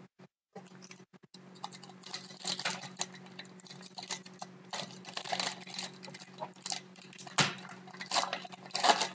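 Foil wrapper of a hockey card pack crinkling and crackling as it is torn open by hand, with the cards inside rustling. The crackling comes in irregular clusters, with a few sharper, louder crackles near the end.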